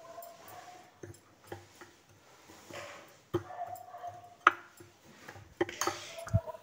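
Metal spoon stirring a damp spice paste in a ceramic bowl, scraping and giving a few light, irregular clicks against the bowl's side.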